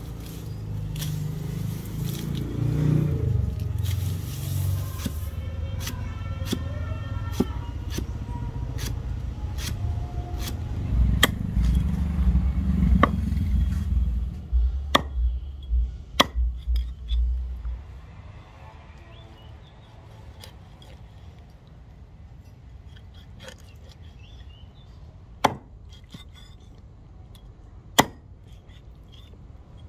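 A kitchen axe chopping: a run of sharp knocks at uneven intervals, thinning in the second half to a few single strikes.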